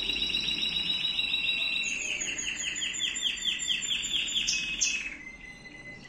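Male Timbrado canary singing: a fast, rolling trill of repeated notes that slows about two seconds in into a run of separate swooping notes, with a brief high note just before the song drops away near the end.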